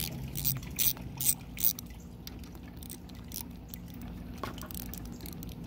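Water dripping from the Yamaha outboard as the water-and-vinegar flush solution drains out of it: several distinct drops in the first couple of seconds, then fewer and fainter.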